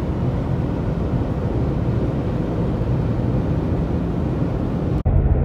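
Road and engine noise inside a car's cabin at freeway speed, a steady low rumble. It breaks off abruptly near the end and a steadier hum follows.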